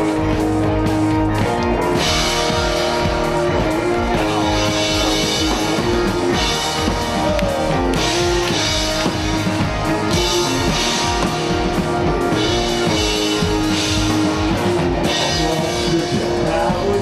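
Rock music with drum kit and guitar, playing at a steady beat.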